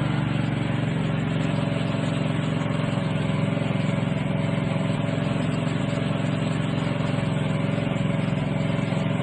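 Gas pressure washer running at a steady pitch, its small engine droning under the hiss of water spraying from the 25-degree nozzle.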